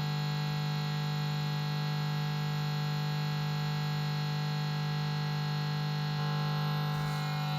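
Vox AC10 guitar amplifier giving off a steady hum-buzz with many overtones while nothing is played: the noise fault the amp is showing.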